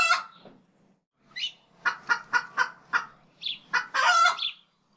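Hen clucking: a string of short clucks with a pause about a second in, ending in a longer drawn-out call near the end.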